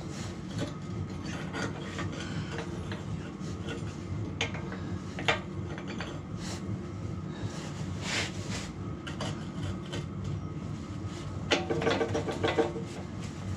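Metal parts and tools being handled on a backhoe linkage: scattered clicks and knocks, then a quick run of louder metallic clinks that ring briefly near the end, over a steady low hum.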